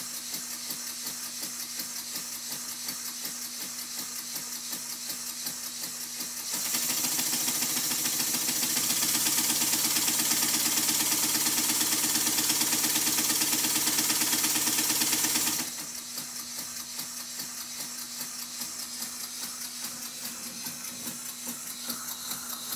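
Small single-cylinder model steam engine running on compressed air, a fast, even beat of exhaust puffs over a hiss of air; it starts about six seconds in and stops abruptly some nine seconds later. A steady air hiss runs on before and after.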